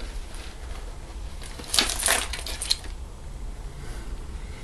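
A brief clatter of small hard objects being handled, a quick run of clicks and rattles starting about a second and a half in and lasting about a second, over a faint low hum.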